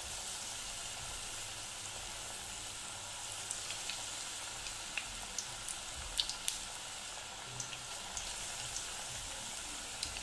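Small raw-potato pakoras deep-frying in hot oil: a steady sizzle with scattered small pops and crackles.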